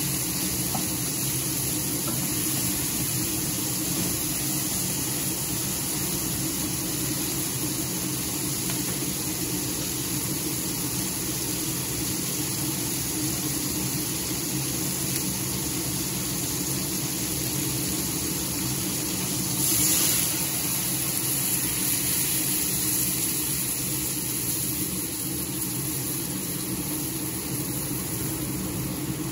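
Chicken pieces sizzling and bubbling in their juices in a stainless steel frying pan, a steady hiss over a steady low mechanical hum, with a brief louder hiss about twenty seconds in.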